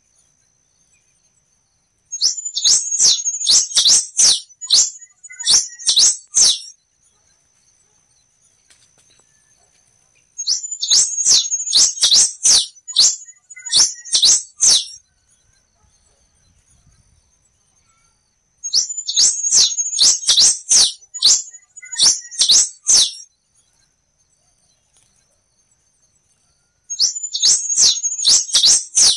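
A black-and-rufous warbling finch (quem-te-vestiu) singing. It gives four bursts of rapid, high chirping notes, each lasting a few seconds, with pauses of several seconds between them.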